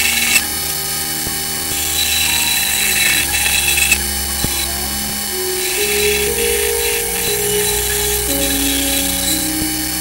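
Bandsaw running and cutting small wooden knife-handle scales, a steady machine noise. Background music with held, changing notes plays over it.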